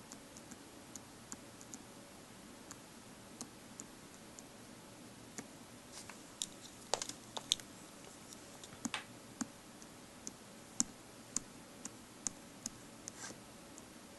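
Light, irregular clicks of fingers typing and tapping on an iPhone 4S touchscreen, faint over a steady hiss, with a denser run of clicks about halfway through.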